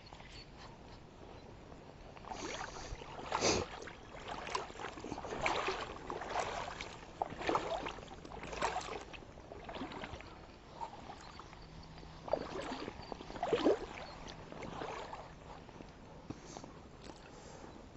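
Water sloshing and splashing in irregular surges, roughly one a second, with two louder splashes. There is a quiet stretch before and after.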